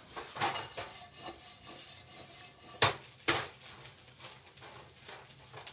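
Wooden slotted spoon stirring and scraping diced potatoes in a nonstick frying pan, with two sharp knocks about halfway through. The potatoes are frying in oil that they are soaking up.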